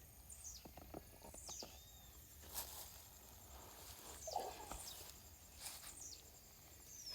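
Quiet outdoor ambience with a bird giving short, high chirps that fall in pitch, repeated about every second, and a few faint knocks.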